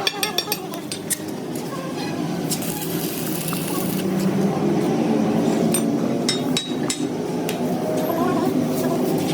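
A steady mechanical hum with scattered light metal clinks and taps from tools.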